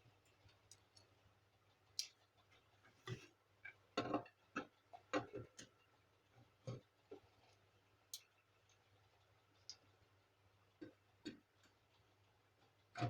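Irregular clicks and light knocks from a laser printer's casing and parts being handled and taken apart, with a few sharper knocks about four to five seconds in.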